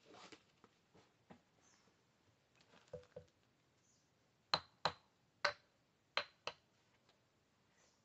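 Soft rustling of a backpack being handled, then five sharp clicks with a brief slight ring, close together over about two seconds, as a hatchet and gear are fastened onto the pack.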